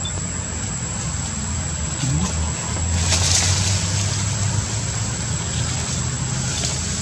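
A steady low engine rumble that grows louder about three seconds in and then eases, under a constant thin high whine.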